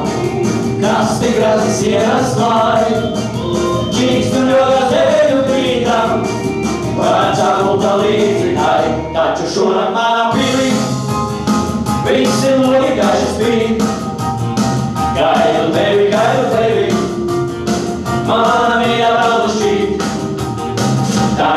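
Male vocal group singing together into microphones, several voices in harmony, over backing music with a steady beat.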